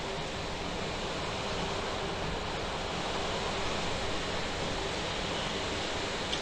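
Steady rain falling, an even hiss that holds constant throughout.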